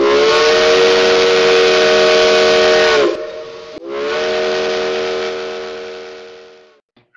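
Steam locomotive whistle, a chord of several tones over a hiss, blown in two long blasts. The first lasts about three seconds and sags in pitch as it cuts off; the second glides up as it starts and fades away near the end.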